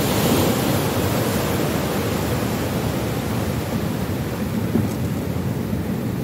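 Steady low wind rumble buffeting the microphone, with sea surf beneath; a single small knock about five seconds in.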